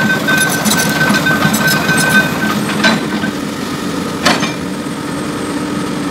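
Komatsu PC200 hydraulic excavator's diesel engine running steadily, with an on-and-off high whine over the first half and two sharp knocks about three and four seconds in.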